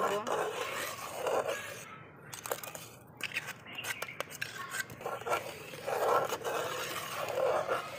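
A metal spatula scraping and stirring in a metal karahi of boiling milk, with a few sharp clicks and knocks midway as date-palm jaggery is added to the milk.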